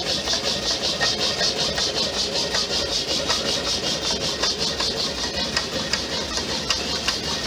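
Homemade Stirling engine generator running unlubricated on PTFE piston seals, with a quick, even beat. A few sharp ticks come through in the second half.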